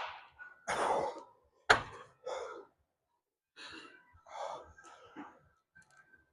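A man breathing heavily in short forceful breaths and exhales, with one sharp knock about two seconds in.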